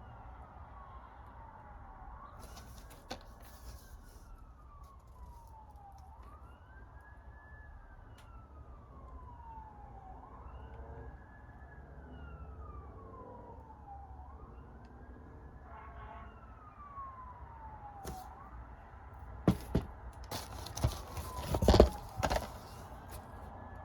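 An emergency-vehicle siren in wail mode, its pitch rising then falling slowly, about once every four seconds. Near the end there is a loud cluster of knocks and clatter.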